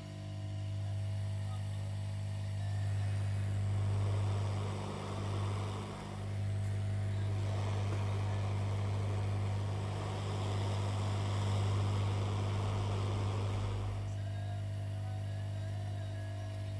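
Hot-air rework station blowing air over a QFN chip: a steady rush of air that comes in a few seconds in, dips briefly, and stops near the end, over a constant low hum.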